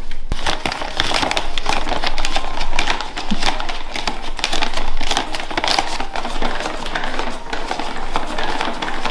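Plastic bag of oat flour crinkling in a constant crackle as it is gripped, shaken and tipped to pour the flour into a bowl.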